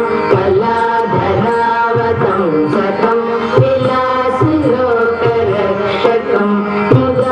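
Carnatic classical dance music: an ornamented melody over a steady drone, with hand-drum strokes keeping the rhythm.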